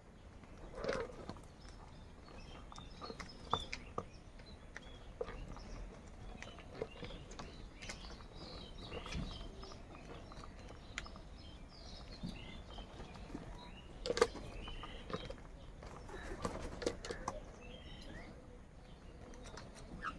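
Faint outdoor bird sounds: scattered small chirps and a few louder single calls, the loudest about a second in and at about fourteen seconds, over a low steady background hum.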